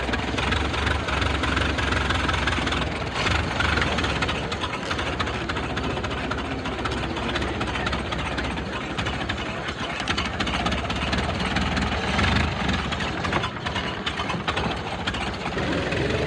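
Antique cars passing by with their engines running, a continuous dense mix of engine noise that swells and eases a little over the stretch.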